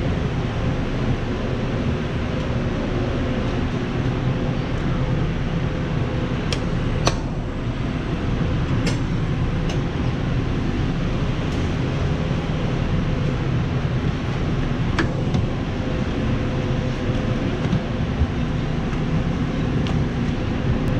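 Steady mechanical hum and rumble with a constant low tone, the running noise of ventilation or kitchen equipment. A few light clicks and taps break in from time to time.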